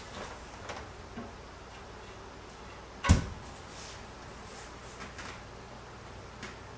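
Floor tile being set onto a mortar bed on a fireplace hearth: faint scraping and shuffling as it is pressed into place, with one sharp knock about three seconds in.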